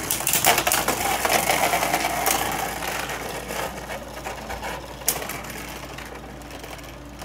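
Three Beyblade Burst spinning tops whirring and clattering in a plastic stadium, knocking against each other and the walls with a rapid rattle and a whine in the first couple of seconds. The rattle fades steadily as the tops lose spin, with one sharp clack about five seconds in.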